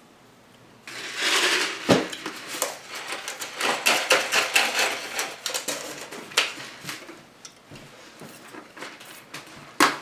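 Irregular clatter and clicks of plates and utensils being handled at a table, starting about a second in after a quiet moment.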